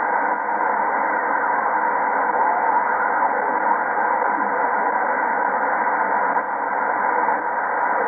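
Kenwood TS-890 HF transceiver receiving upper sideband on the 15 m band, with steady band-noise hiss from its speaker while it is tuned slowly around 21.200 MHz. The hiss is cut off sharply above about 2.4 kHz by the receiver's SSB filter.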